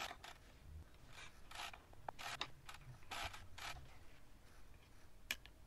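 Faint metal clicks and short scrapes from a hex key turning the pinch bolts of a Shimano Ultegra left crank arm, coming in a loose series with a sharper click about five seconds in.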